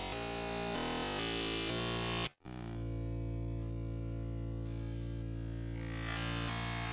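Synthesizer music with chords changing every half second or so, cutting out abruptly for a split second about two and a half seconds in, then going on as a long held chord.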